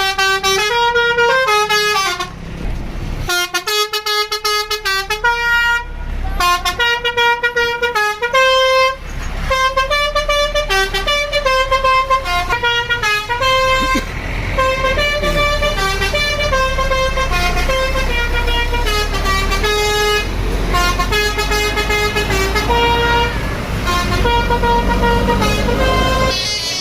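Bus telolet horn, a multi-tone musical horn on a bus, playing quick melodies of stepped notes over and over, with brief breaks in the first ten seconds. A low rumble runs underneath.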